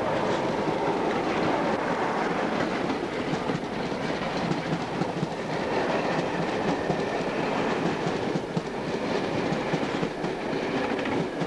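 A Class 47 diesel locomotive, a Sulzer twelve-cylinder engine, and its train passing close at slow speed, followed by the coaches' wheels beating clickety-clack over the rail joints.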